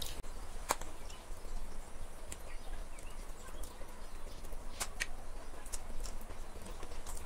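Two people eating noodles with forks: scattered sharp clicks of chewing and mouth smacks and of forks against china plates, over a low steady hum.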